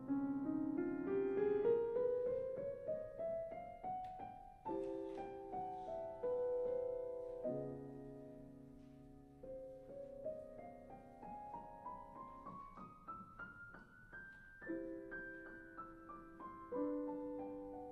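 Solo piano music: two rising runs of notes, each climbing steadily over about four seconds, with held chords between them and after them.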